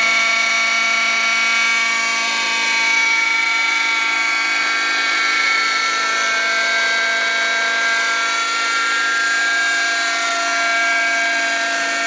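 Radio-controlled model helicopter hovering, its nitro glow engine and rotor running at a steady high-pitched whine.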